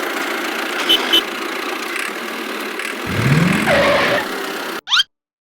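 A small engine or motor running steadily, rising in pitch about three seconds in, then cutting off abruptly near the end.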